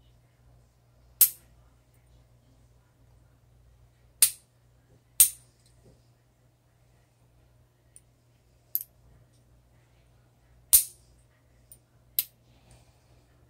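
Stainless-steel lever nail clipper snipping through fingernails: six sharp snaps, irregularly spaced a second or more apart, with a couple of fainter clicks between them.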